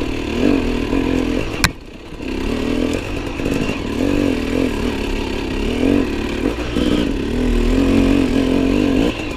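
Enduro motorcycle engine revving up and down repeatedly while riding off-road, with a sharp click about a second and a half in.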